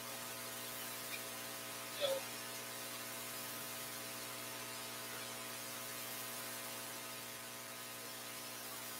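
Steady electrical mains hum with a stack of overtones, picked up through the microphone and sound system, with one faint brief sound about two seconds in.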